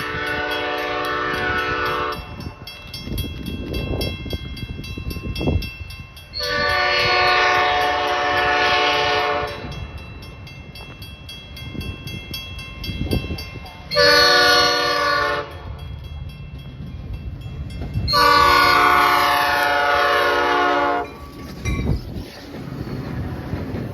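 Metra commuter locomotive's air horn, a chord of several tones, sounding the grade-crossing signal: long, long, short, long. The train's low rumble and wheel clatter fill the gaps between blasts.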